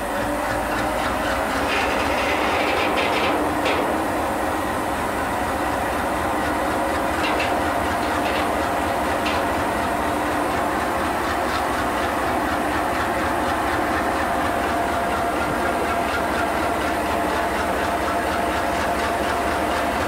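WDM-3D diesel locomotive (ALCo 251 engine) and its freight train running forward: a steady running drone with a few steady hum tones, broken by short clusters of wheel clicks over rail joints.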